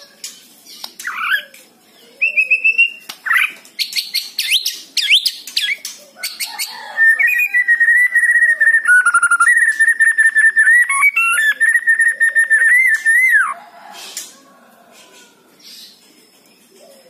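White-rumped shama (murai batu) singing loud, varied whistled phrases and sharp notes. About seven seconds in, it breaks into a long, fast run of rapidly repeated notes that stops abruptly about six seconds later.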